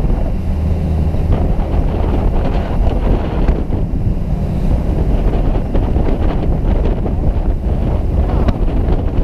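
Heavy wind buffeting the camera's microphone on a boat's open bow, over a steady low hum from the boat and the wash of the sea.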